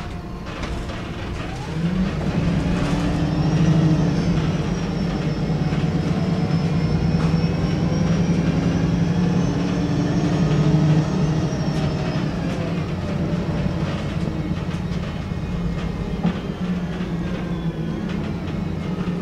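Cabin sound of a VDL SB200 single-deck bus with its engine running: a steady low drone that grows louder about two seconds in, with rattles from the bodywork and fittings. A thin high whine rises and then falls away through the middle.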